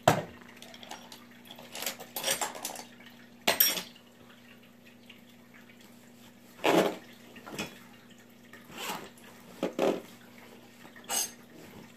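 Irregular clinks and knocks of small metal tools and parts being picked up and set down, about ten in all, spread over a few seconds with gaps between them.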